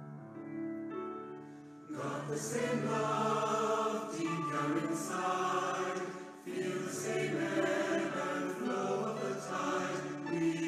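Piano playing sustained chords alone, then about two seconds in a mixed choir of men's and women's voices comes in singing over the piano.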